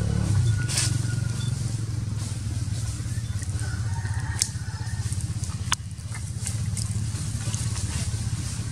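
A steady low engine-like rumble with dry leaves crackling, and two sharp clicks, one about four seconds in and a louder one near six seconds.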